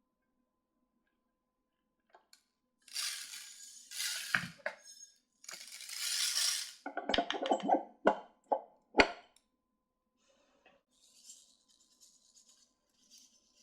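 Handling noises of small hard objects: two spells of hiss-like rustling, then a run of clicks and clinks ending in a few sharp separate clicks, with faint rustling near the end.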